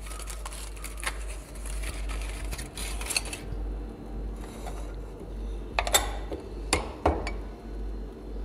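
Glassware handled on a lab bench: rustling and scraping as a conical flask of agar medium is unwrapped and handled, then three sharp glass clinks about six to seven seconds in.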